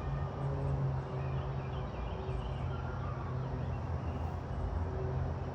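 Steady low rumble of a running engine, a hum that holds its pitch throughout.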